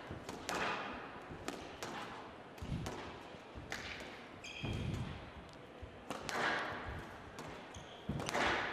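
Squash rally on a glass court: a string of sharp hits as the racket strikes the ball and the ball smacks off the walls, with court shoes squeaking on the floor.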